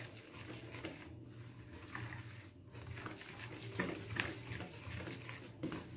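Wooden spoon beating a thick flour batter by hand in a plastic bowl: soft, irregular scrapes and knocks, over a faint steady low hum.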